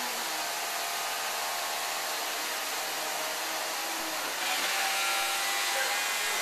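Vacuum cleaner running steadily, a motor whine over a constant rushing hiss; it gets louder about four and a half seconds in.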